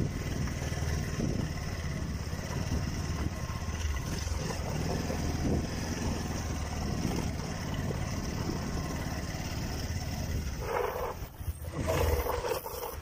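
Motorcycle engines running at low speed over a rough dirt trail, a steady low rumble. Near the end it dips briefly and then surges louder.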